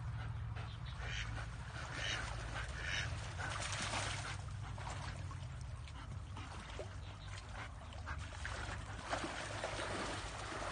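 A duck quacking, with three short calls in the first few seconds, over a steady low rumble.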